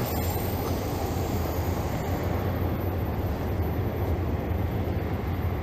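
Steady low rumble of city street background, with traffic running and no distinct single event.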